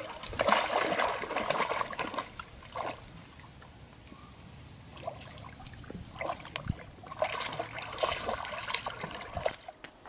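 A dog wading in shallow lake water, its legs splashing and sloshing. The splashing comes in two spells, over the first three seconds and again from about seven seconds until just before the end, and is quieter in between.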